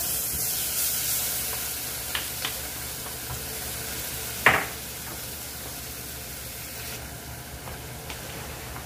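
Tomato paste and onion-spice sauce sizzling as it fries in a steel saucepan, with a wooden spoon stirring. A single sharp knock about four and a half seconds in.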